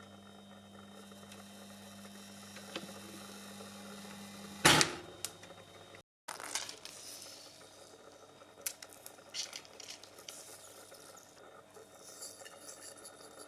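Small household objects being handled: light clinks and knocks, with one louder knock about five seconds in and scattered small clicks later. A faint steady hum runs under the first few seconds.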